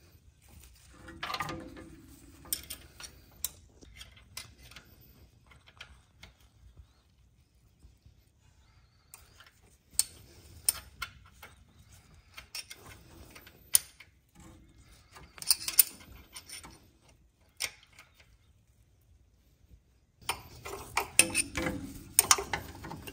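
Small metal hand tools and parts clicking, tapping and clattering in scattered handfuls during work at a small-block Chevy's fuel pump mounting plate, with a denser run of clicks near the end.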